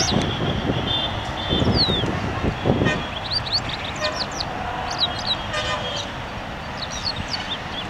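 Outdoor soundscape of many small birds making quick, short chirps over a low traffic rumble, with a few short horn toots in the first second or two.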